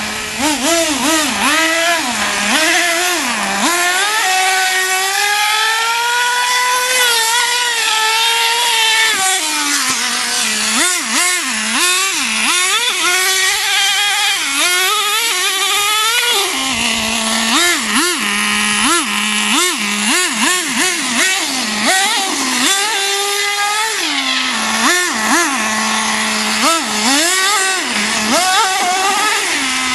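Traxxas T-Maxx 2.5 nitro RC truck's small two-stroke glow engine, revved up and down over and over as the truck is driven. It holds a long high-revving run about four to nine seconds in and drops back to a steady idle between bursts.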